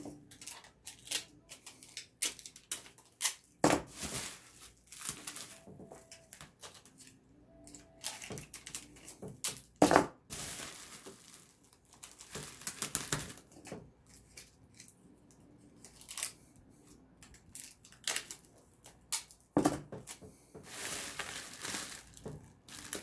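Bubble wrap crinkling and crackling as it is handled and wrapped, with packing tape being pulled off the roll in rasping rips. The sounds come irregularly, with a longer rip of about two seconds near the end.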